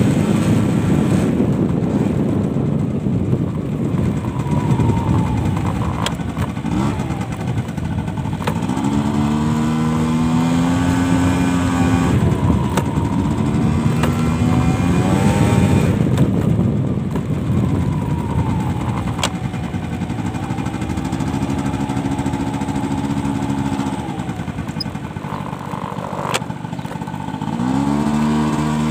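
Motorcycle engine running on the move, its pitch climbing and falling several times as the bike speeds up and eases off, under heavy wind rumble on the microphone.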